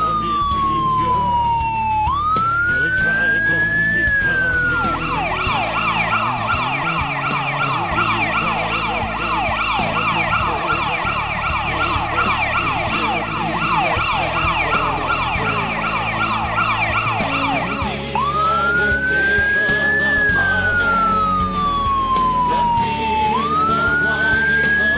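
Ambulance siren sounding loudly. It runs a slow rising and falling wail, switches about five seconds in to a rapid yelp of about three sweeps a second for roughly thirteen seconds, then goes back to the slow wail.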